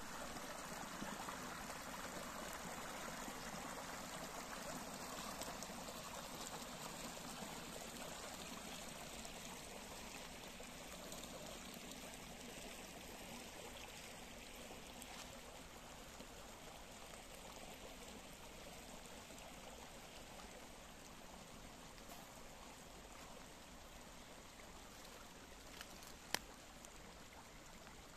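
Small woodland brook running and splashing over a little step of stones, a steady water noise that slowly grows fainter. One sharp click near the end.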